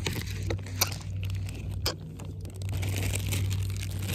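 Clear plastic zip-top bag being handled and crinkled close to the microphone: a run of rustling crackles with a few sharp clicks.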